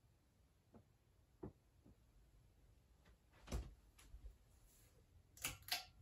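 Pull-chain switch of a Casablanca K4S ceiling-fan light kit clicking as it is pulled and the lights come on: two sharp clicks close together near the end. Before that come a few faint clicks and one louder knock.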